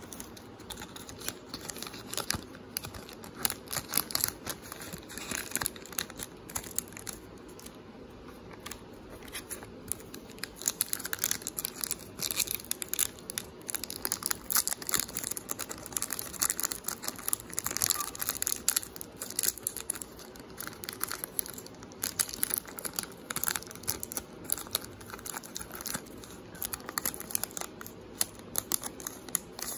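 Trading-card pack wrappers being torn open and crinkled by hand: a dense run of sharp crackles and rips with a few brief lulls.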